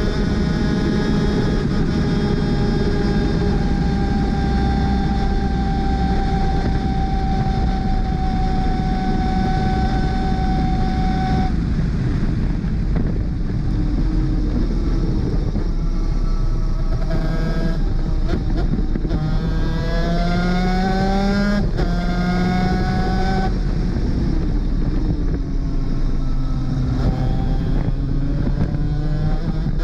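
Two-stroke 250 cc superkart engine held near full revs, its pitch sagging slightly, until the driver lifts off about 11 seconds in. It then accelerates again through the gears, the pitch climbing and dropping back at each upshift, over heavy wind rush.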